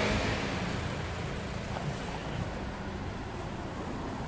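A car passing on a city street, its engine and tyre noise fading over the first second or so, leaving steady traffic noise.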